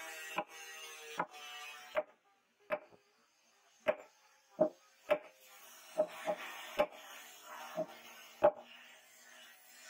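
About a dozen sharp knocks at uneven intervals as a wooden kukri handle with a metal ferrule is knocked down onto the steel blade's tang to seat it. The steel blade rings briefly after each knock.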